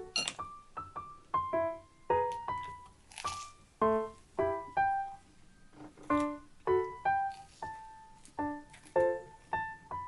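Background music: a light, bouncy keyboard melody of short, quickly fading notes at an even pace.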